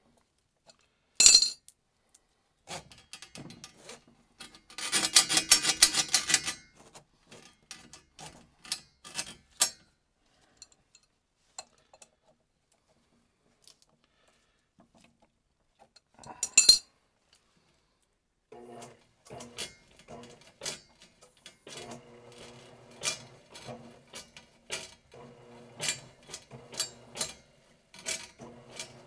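Steel cable and metal fittings of a drum-type power drain auger clinking and rattling as the cable is worked by hand. About two-thirds of the way in, the auger's electric motor starts running in short spells, humming under the clicking of the turning cable.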